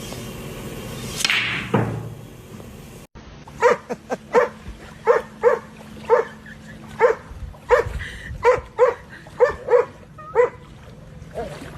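A small dog barking in a run of short, high yaps, about fifteen over seven seconds. Before them comes a quick downward-sliding sound.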